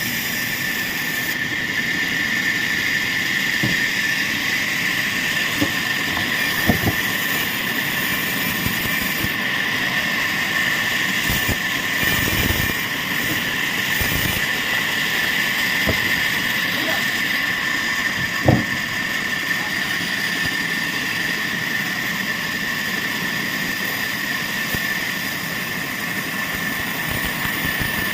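Sawmill machinery running steadily with a constant high whine, broken by a few sharp knocks, the loudest two about a third of the way in and past the middle.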